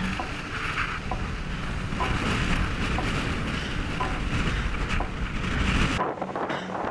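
Wind buffeting the microphone over surf washing up a beach: a steady, heavy rush with a faint tick about once a second. The rush cuts off sharply near the end.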